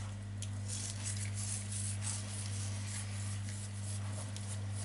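Steady low electrical hum, with faint light ticks and rustles of salt being pinched between fingers and sprinkled over raw button mushroom caps.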